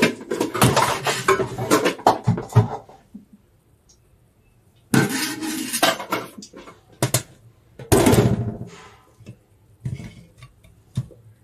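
Raw beef tripe being handled in a stainless-steel sink, with a metal sufuria set down in the sink: wet slaps and rustles, sharp metal knocks and clatter in irregular bursts, with a pause of about two seconds in the middle.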